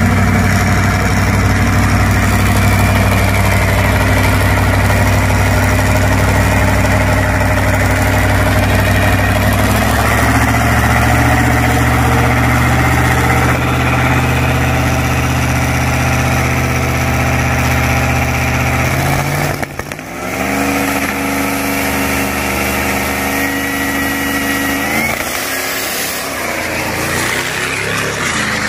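Turbo-diesel Ford Super Duty pickup engine running at a loud, steady idle; its note steps up about a third of the way in and holds. About two-thirds in it launches: the engine pitch climbs, a high rising whistle comes in, then the pitch drops back at a shift and climbs again.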